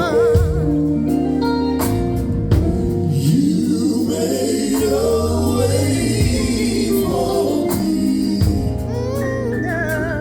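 Live gospel music: a band with drums plays under held vocal harmonies from a male gospel quartet, with a solo voice wavering between the chords.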